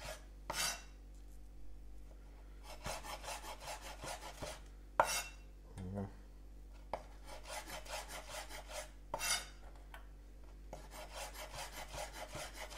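Broad-bladed kitchen knife slicing shiitake mushrooms on a wooden cutting board: runs of quick, light cutting strokes, with a few sharper knocks of the blade on the board.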